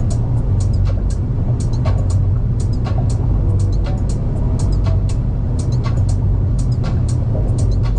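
Car driving: a steady, dense low rumble of engine and road, with music playing over it and short crisp high strikes scattered through.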